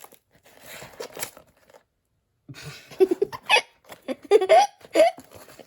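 Cardboard and plastic packaging rustling, then after a brief pause a string of short, loud wordless vocal sounds, yelps that rise and fall in pitch, from a person struggling with the box.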